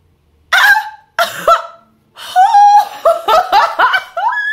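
A woman laughing and squealing with excitement in short high-pitched bursts: two separate ones about half a second and a second in, then a quick run of them from about two seconds in.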